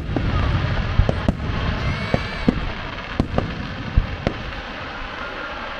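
Aerial fireworks display: a dense crackle of bursting shells with sharp single bangs scattered through it, several close together in the first few seconds. The crackle fades slowly toward the end.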